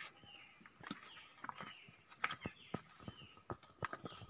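Faint outdoor ambience: small birds giving short falling chirps again and again, over scattered sharp clicks and taps.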